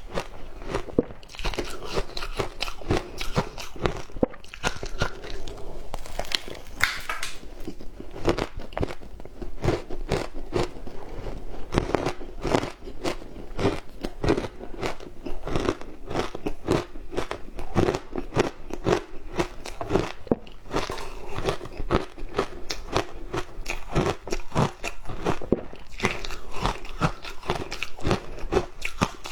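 Close-up crunching of frozen matcha ice being bitten and chewed, a quick run of sharp crackles and crunches throughout with no break.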